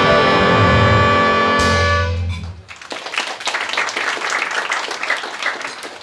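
Jazz big band of saxophones, trumpets and trombones holding the final chord, with a cymbal crash about a second and a half in, cutting off about two seconds in. Audience applause follows.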